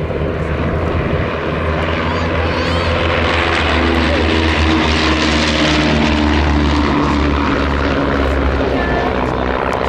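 De Havilland Chipmunk light aircraft flying past, its propeller and piston engine droning steadily; the drone grows louder over the first few seconds and then holds.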